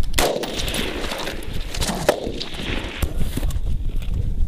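A few single rifle shots on an outdoor firing range, each a sharp crack followed by a fading echo, spaced one to two seconds apart.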